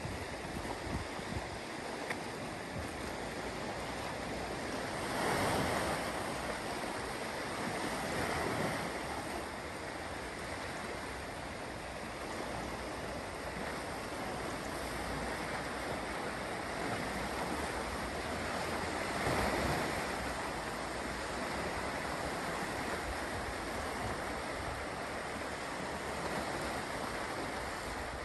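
Small sea waves washing against a rocky shoreline, swelling into louder washes about five, eight and nineteen seconds in. Wind buffets the microphone.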